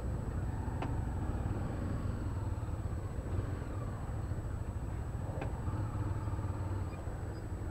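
Honda CB300 motorcycle's single-cylinder engine running steadily at low revs, a low even rumble, amid slow-moving car traffic.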